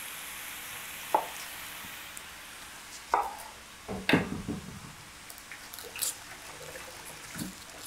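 A chef's knife trimming and peeling onions on a wooden cutting board: a few separate sharp knocks and clicks, the loudest about four seconds in, with soft crackling of onion skin. Beef frying in a wok sizzles in the background and fades about two seconds in.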